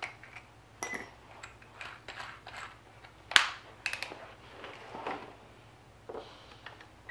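Scattered clicks and small metallic clinks of a drill bit being handled and fitted into a cordless drill's chuck, with one sharper click about three and a half seconds in.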